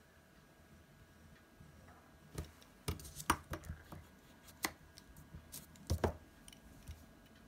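Pencil and plastic eraser being handled on a paper-covered desk: a scattering of light taps and knocks that begins about two seconds in.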